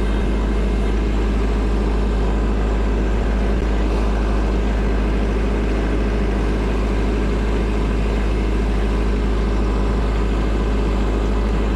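Kubota tractor's diesel engine running steadily at an even speed, a constant low drone with no changes in pitch.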